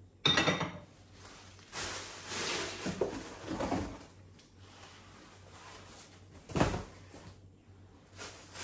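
Cookware being unpacked from a cardboard box: a sharp knock just after the start, then a couple of seconds of cardboard and plastic wrapping rustling, and another thump about two-thirds of the way through.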